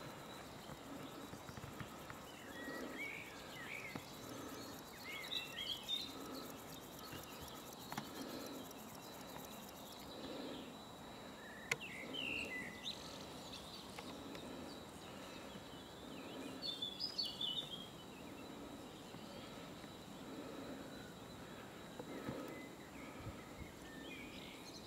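Faint outdoor birdsong: short chirping phrases from small birds now and then among the trees, the loudest run near the two-thirds mark. A single sharp click sounds about halfway through.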